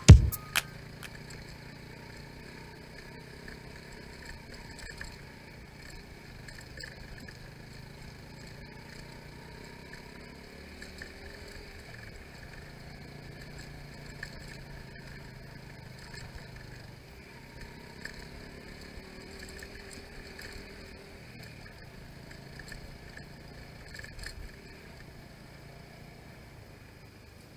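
Bajaj Pulsar 150's single-cylinder engine running steadily at low speed on a rough dirt track, with a few short knocks from the bumpy ride.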